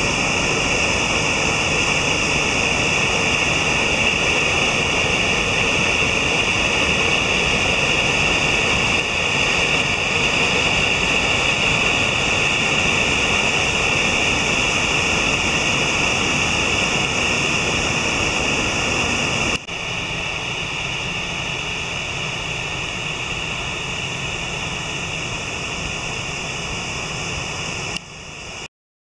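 Mountain stream and waterfall rushing through a steep rock gorge: a steady, loud roar. About twenty seconds in it cuts to a quieter stretch of the same rushing water, which stops abruptly just before the end.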